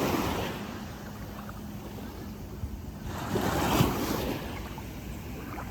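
Small sea waves washing onto the beach, swelling twice, at the start and again about three seconds in, with wind rumbling on the microphone.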